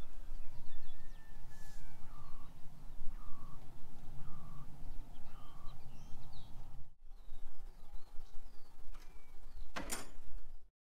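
Birds calling over a steady low rumble: one gliding call, then four short, slightly falling calls about a second apart. The sound drops out briefly about seven seconds in, and a single sharp knock comes near the end.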